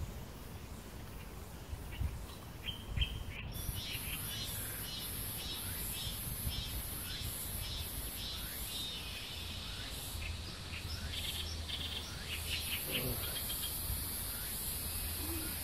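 Birds chirping over and over in woodland, with a high, steady insect buzz behind them that comes in abruptly a few seconds in. A low wind rumble sits on the microphone throughout.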